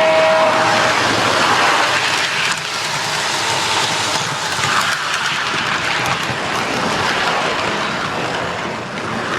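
Model train running on its track, two model diesel locomotives pulling a long train with a steady rumble and rattle of wheels and motors. The tail of a model diesel horn sounds and stops about a second in.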